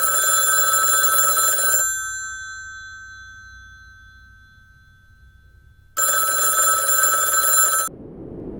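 Telephone-style bell ringtone: two rings of about two seconds each, the first left to ring out and fade before the second starts. The second ring cuts off sharply near the end, and a steady rushing noise takes over.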